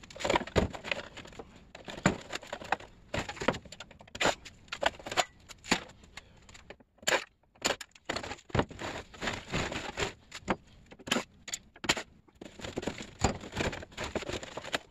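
Irregular clinks, knocks and scrapes of metal as an air conditioner unit is taken apart by hand, its sheet-metal casing and parts being handled and pulled free.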